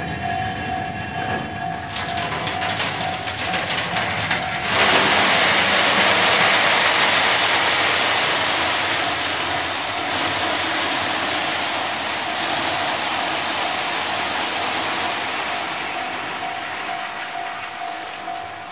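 Hopper cars of a ballast train rolling past with wheel clicks while a Japanese level-crossing bell rings steadily. About five seconds in, a loud rushing hiss of ballast pouring from the hopper chutes sets in and slowly fades away.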